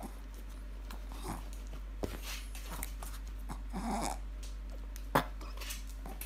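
Shih tzu making short, scattered vocal sounds as it reaches up for a piece of bread and takes it in its mouth. A few sharp clicks come through, the loudest about five seconds in.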